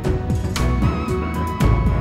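Background music with a steady beat about once a second and deep bass.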